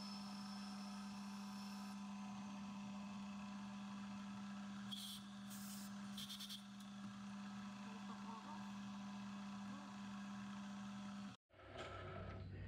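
Small metal lathe running steadily with a low hum while a boring bar takes a light spring pass in a bore. There is brief hissing from the cut twice around the middle. About a second before the end the sound drops out abruptly and a lower hum follows.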